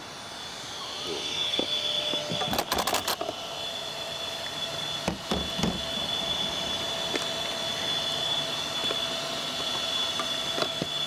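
Steady high-pitched whine, most likely the cooling fans of a Traxxas Slash 4x4 RC truck held close, growing louder over the first couple of seconds. A burst of clattering handling noise comes about two and a half seconds in, and a couple of knocks follow around five seconds.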